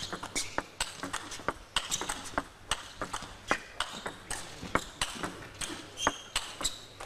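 Table tennis rally: the ball clicks sharply off the rackets and table in a quick back-and-forth, about three strikes a second.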